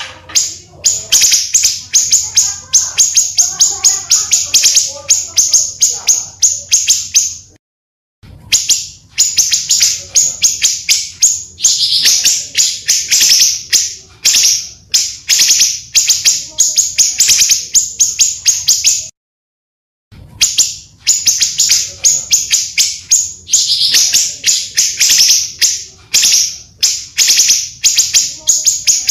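Pancawarna, a songbird kept in Indonesia, singing long phrases of rapid, high chirps over a faint low hum. The song cuts off briefly twice, about eight and nineteen seconds in.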